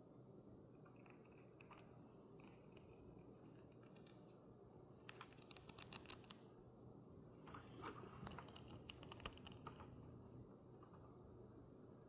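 Near silence with faint clicking and scratching of Cat 5 cable wires and a plastic RJ45 plug being handled, coming in two short clusters around the middle.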